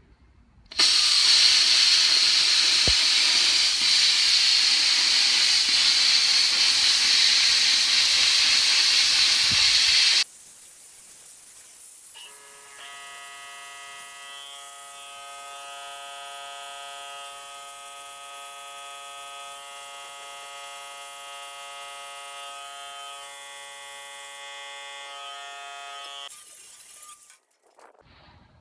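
Plasma cutter trimming the edge of a steel plate door: a loud, steady hiss of the cutting arc and air for about nine seconds that stops abruptly. After a short pause a quieter, steady whine of several tones runs for about fourteen seconds as cutting goes on.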